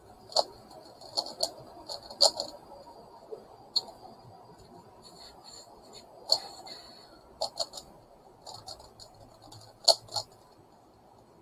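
A plastic megaminx puzzle being turned by hand, its faces clicking and clacking in quick, irregular turns, with a few louder clacks scattered among softer ones.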